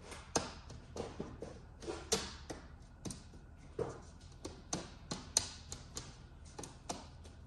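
Irregular light taps, clicks and small knocks, one after another, as a pinball backglass is handled and pressed into its frame.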